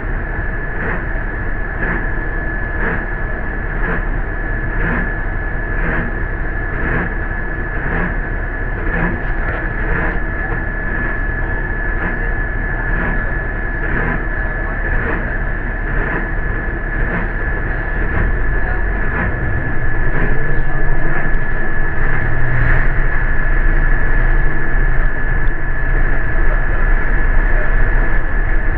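Ride inside an MTA city bus: low engine and road rumble with a steady high-pitched whine and a faint tick about once a second. It grows louder about twenty seconds in as the bus picks up speed.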